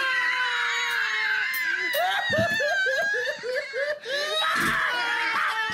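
A man laughing hard: high squealing at first, then a quick run of breathy 'ha' pulses, about five a second.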